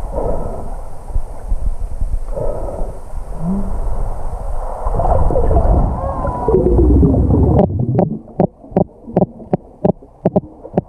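Muffled underwater sound through an action-camera housing: low rumble and gurgling water with a few short warbling glides. Past the middle the hiss drops away sharply, and a quick run of about ten evenly spaced knocks follows, about three a second.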